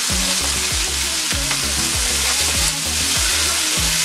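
Chopped bell peppers and onions sizzling as they sauté in hot avocado oil in a stainless steel pan, stirred by hand. Background music with a steady bass beat plays underneath.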